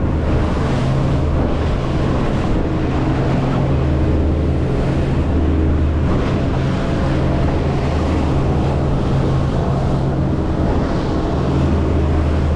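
Boat engine running steadily under way, a continuous low drone, with rushing water and wind noise over it.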